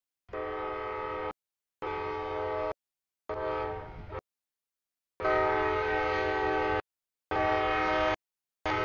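CSX freight locomotive's horn sounding a chord of several steady tones over the rumble of the passing train at a grade crossing. It comes as a series of blasts of about one to one and a half seconds, each cut off abruptly into total silence.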